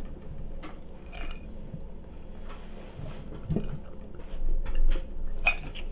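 Drinking water from a glass close to the microphone: a series of gulps and swallows, the heaviest about four and a half to five seconds in, with small clicks throughout.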